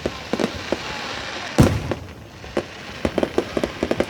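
Fireworks going off over a steady hiss: a string of sharp bangs and crackles, the loudest about one and a half seconds in, then a quick run of pops near the end.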